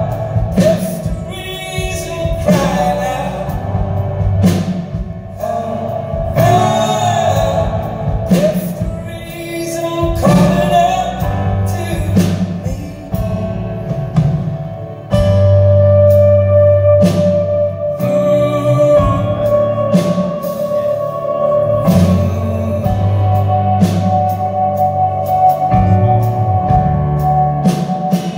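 Live band music: a slow song with drums, bass and keys, and a voice singing drawn-out notes in the first half, heard through a hall's reverberation.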